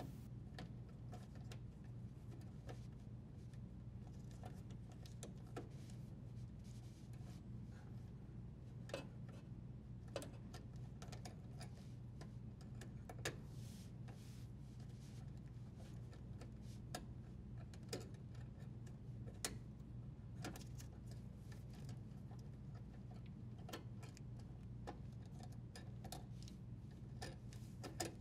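Faint, irregular small clicks and light handling noises from plastic wire nuts being twisted off and electrical wires being pulled apart, over a steady low hum.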